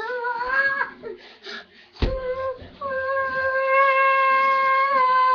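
A howl: a short rising, wavering call, then a long steady howl held on one pitch for about three seconds. A sharp knock comes about two seconds in.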